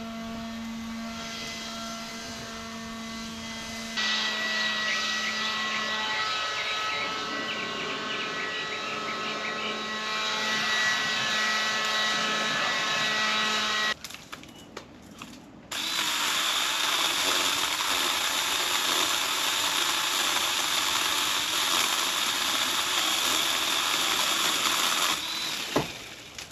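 A power tool running in long runs with a steady motor whine: it runs quieter at first and louder from about 4 s in, stops briefly about 14 s in, then starts again and runs noisier and louder until just before the end.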